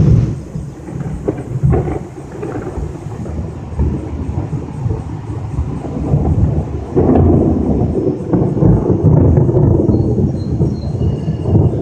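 Thunder rumbling through a storm, swelling louder about seven seconds in.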